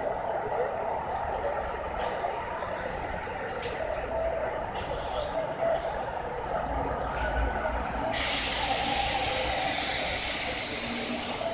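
A stopped Bombardier FM-95A Metro train, whose brakes have been sticking, gives a steady din, then about eight seconds in a loud hiss of air breaks out suddenly and runs for about three seconds, typical of compressed air venting from the train's brakes.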